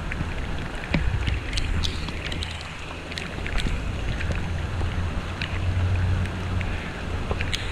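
Storm wind rumbling and buffeting on the microphone, unsteady in strength, over a steady rushing hiss of hurricane rain, with scattered sharp ticks of raindrops striking the camera.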